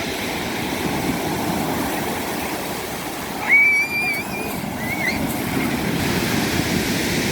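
Black Sea surf breaking and washing steadily on the shore in choppy water. About three and a half seconds in a loud, high cry is held for about a second, with a shorter one a second later.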